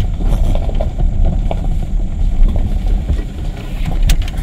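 Motor vehicle engine running, a steady low rumble with a single sharp click near the end.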